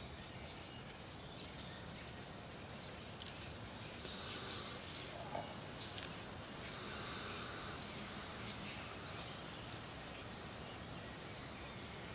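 Flock of common starlings in a pre-roost murmuration, faintly calling: scattered short, high whistles, many falling in pitch, over a steady outdoor hiss.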